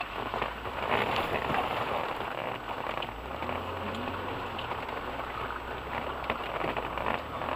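Heard from inside an off-road vehicle's cabin: tyres churning through liquid mud, with a dense crackling, splattering hiss of mud and water thrown against the wheel arches and underbody. Under it runs a low engine drone whose note changes about three seconds in.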